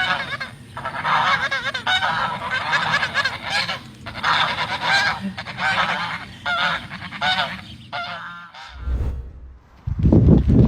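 A flock of geese honking loudly and repeatedly, several calling over one another, for about eight seconds. The calls then stop, and near the end a different, loud low-pitched noise begins.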